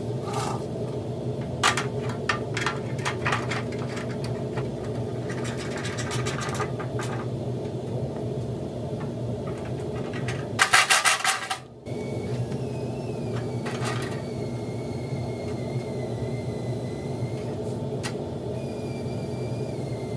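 Metal parts being handled and fitted: scattered clanks, knocks and rattles as an aluminium radiator and its bracket are set in place, with a loud burst of clattering about ten seconds in. A steady machine hum runs underneath.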